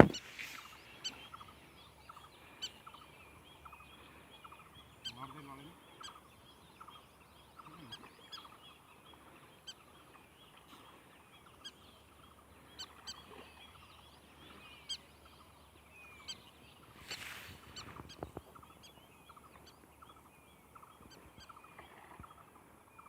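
Faint, scattered bird chirps and calls, with short ticks, and a brief louder rush of noise about seventeen seconds in.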